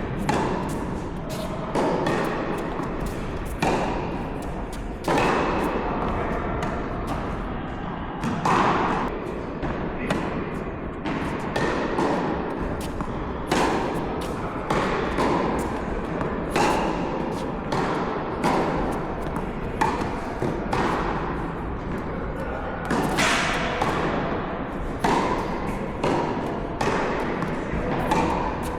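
Tennis ball being struck by rackets and bouncing on the court during a rally: a string of sharp pops and thuds every second or so.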